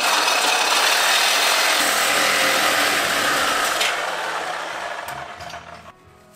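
A power tool cutting through a metal exhaust pipe: a loud, steady cutting noise that starts abruptly, holds for about four seconds, then fades over the last couple of seconds.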